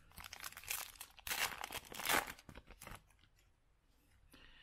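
Foil wrapper of a Topps Chrome trading-card pack being torn open and crinkled, in a run of rustling tears that stops about three seconds in.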